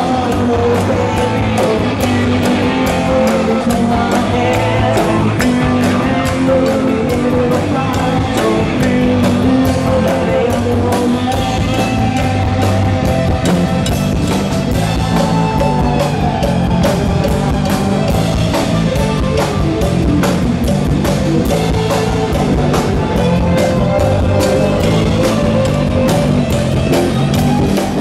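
Rock band playing loudly with electric guitar, bass and drum kit keeping a steady beat, and a singer's vocals over the top.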